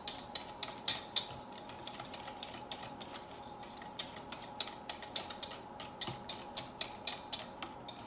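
Wire whisk clicking and scraping against a stainless steel mixing bowl as it beats thin pumpkin pie filling, a quick steady run of strokes several a second, loudest in the first second. A faint steady hum lies underneath.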